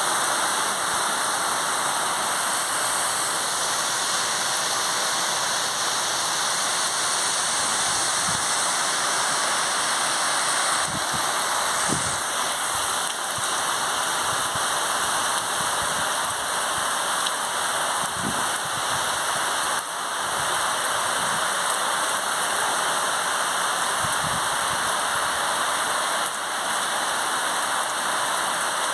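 Rain falling steadily: an even, dense hiss without lulls.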